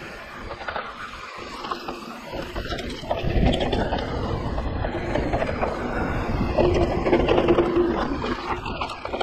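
Mountain bike rolling fast down loose dirt singletrack: tyres crunching over the dirt, the chain and frame rattling, and wind buffeting the helmet camera's mic. It gets louder about three seconds in, with a short steady whine around seven seconds in.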